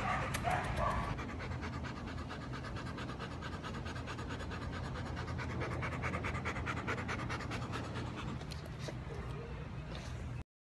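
A dog panting fast and evenly, over a steady low rumble; the sound cuts off abruptly near the end.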